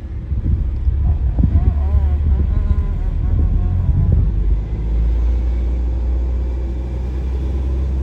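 A car driving, heard from inside the moving car as a steady low rumble of engine and road. Uneven knocks and bumps come through the first half, with faint voices in the background.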